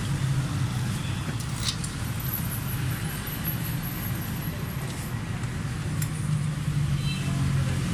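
Steady low hum of a running motor vehicle, with a few short sharp clicks about two seconds in and again around five and six seconds.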